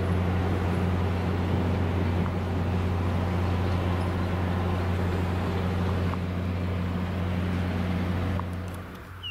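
EMD FL9 diesel locomotive running steadily as it pulls a passenger train slowly along, a deep even engine drone that drops away near the end.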